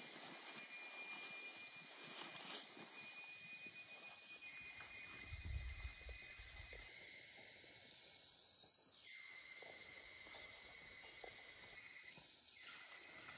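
A steady chorus of insects chirring in several high tones, over faint rustling of leaves and stalks. A brief low rumble comes about halfway through.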